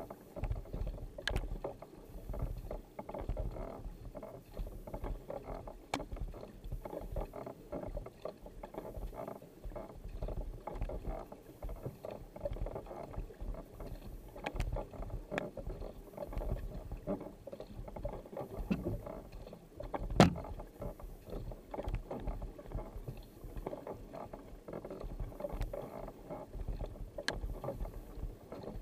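Kayak being paddled hard, heard from a camera mounted on the boat: paddle blades splashing in and out of the water on alternating sides and water rushing along the hull. A few sharp clicks or knocks cut through, the loudest about two-thirds of the way in.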